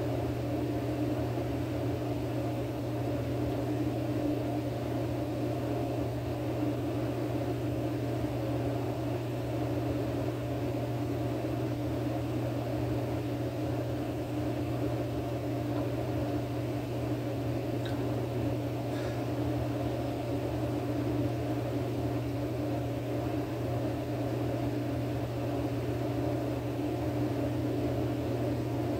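A steady low mechanical hum with a rush of noise above it, unchanging in level.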